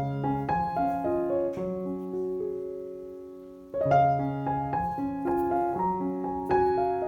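Background piano music: a gentle melody of single notes, one held note dying away about halfway through before the playing picks up again.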